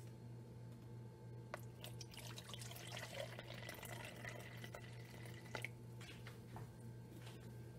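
Vinegar poured from a plastic gallon jug into a plastic measuring cup: a faint trickling splash lasting about three seconds, with a light knock just before the pour and another as it ends.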